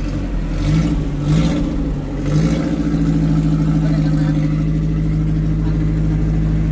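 An engine running nearby. It rises briefly two or three times in the first couple of seconds, then settles to a steady idle at one pitch.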